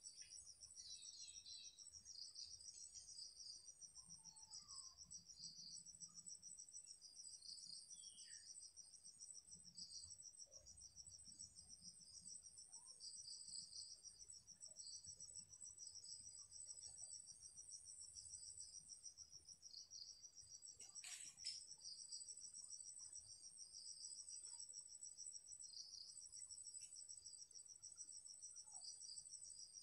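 Faint insects trilling steadily: a high, fast-pulsing trill with a second, higher steady one above it. A single brief click about two-thirds of the way through.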